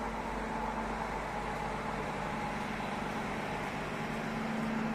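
Heavy construction machinery engine running steadily: a low, even hum with a steady drone over a wash of noise, swelling slightly near the end.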